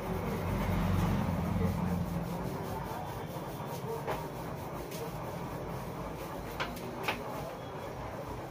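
Fingers rubbing and scratching through hair in a scalp massage, a soft rustle over a steady low rumble that swells in the first couple of seconds. A few sharp clicks sound near the end.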